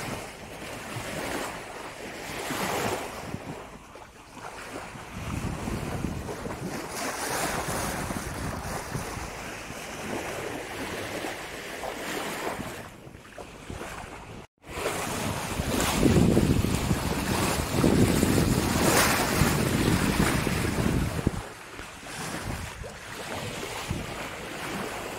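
Water washing and splashing along a boat's hull, with wind buffeting the microphone. The sound cuts out for an instant about halfway through, then comes back louder for several seconds.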